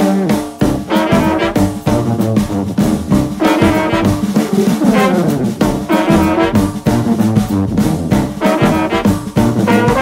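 Background music: an upbeat jazzy tune led by brass instruments over a steady drum beat.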